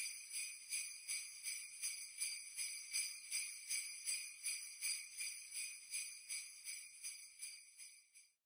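Jingle bells shaken in a steady rhythm, a little under three shakes a second, fading out and stopping near the end: the bells closing the song's instrumental backing.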